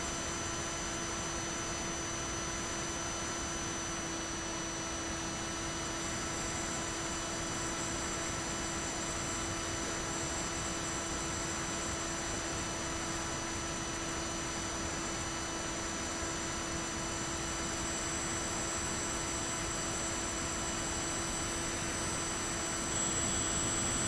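Bixler 3's electric motor and pusher propeller running at a steady cruise throttle: a steady hum made of several even tones over a rush of wind on the onboard camera. About a second before the end it gets louder, as the sound comes from closer to the propeller.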